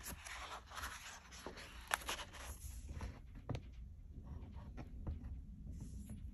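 Large stiff pages of an oversized hardcover art book being turned by hand: a paper rustle with a couple of sharp snaps, the loudest about two seconds in.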